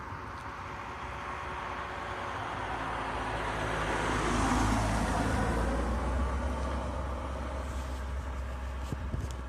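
Cars driving past on a country road, their tyre and engine noise swelling to a peak about halfway through and then fading away.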